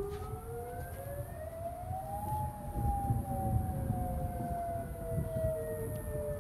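Outdoor tornado warning sirens wailing: one siren's pitch rises for about two seconds and then slowly falls, while a second, overlapping tone falls slowly beneath it, all over a low rumble.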